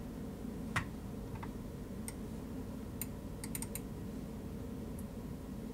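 Scattered sharp clicks of a computer mouse and keyboard, the loudest a little under a second in and a quick run of four about three and a half seconds in, over a low steady room hum.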